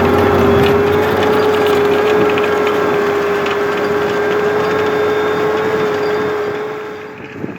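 Fendt 724 Vario tractor's turbocharged six-cylinder Deutz diesel working under load while pulling a six-furrow plough: a steady engine note with one held whine. It fades over the last second or so.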